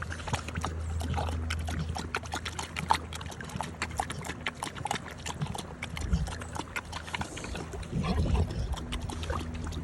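Dog lapping water from a river: a quick, irregular run of wet clicks and slurps, several laps a second.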